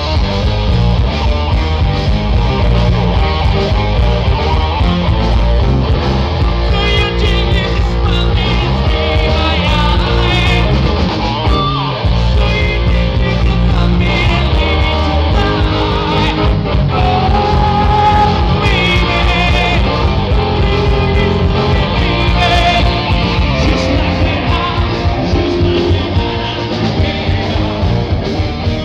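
Live rock band playing a song, a male lead singer on microphone over guitar and drums, with a short break in the music about twelve seconds in.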